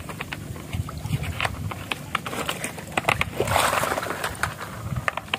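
Footsteps wading through shallow water and soft mud among mangrove roots, with scattered splashes and clicks, and a rustle of leaves brushing past about three and a half seconds in.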